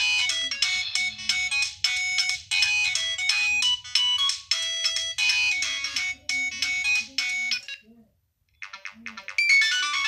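Nokia 2608 flip phone playing a ringtone melody through its loudspeaker while the tone is previewed. The melody cuts off about eight seconds in, and after a brief silence the next ringtone starts.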